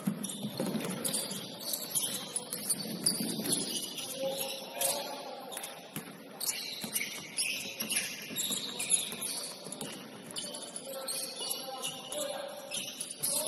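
Basketball game in a gym: sneakers squeaking on the court floor in short high chirps, with scattered sharp knocks of the ball bouncing.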